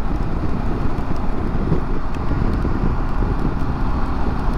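Wind buffeting the microphone with road noise from a Harley-Davidson Pan America motorcycle riding at highway speed, a steady low rumble.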